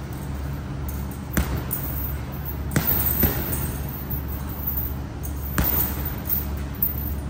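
Gloved punches landing on a hanging heavy punching bag: a thud about a second and a half in, two in quick succession around three seconds, and one more later, over a steady low hum.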